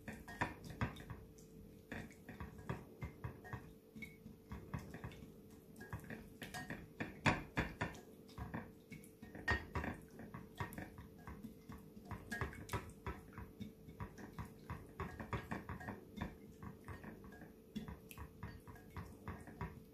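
Whisk beating a thick yogurt marinade in a glass bowl: an irregular run of soft wet slaps and taps against the glass, several a second.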